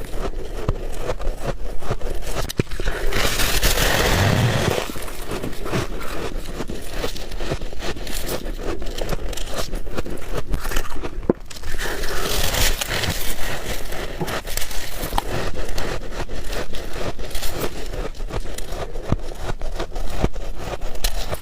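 Close-miked crunching and chewing of soft white ice or freezer frost, a dense crackle of small squeaky clicks. It grows louder in two stretches, about three seconds in and again about twelve seconds in.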